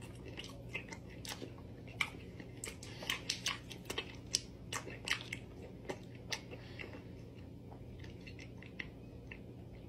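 A person biting into and chewing a block of butter, with irregular soft wet mouth clicks and smacks over a faint steady low hum.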